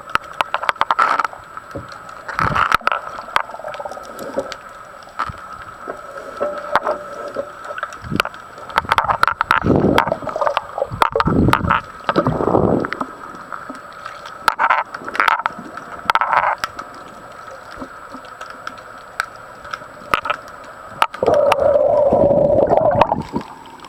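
Underwater recording of handling noise: many sharp knocks and scrapes against the camera, with gurgling water surges and a steady high hum throughout. A stronger steady sound comes in near the end.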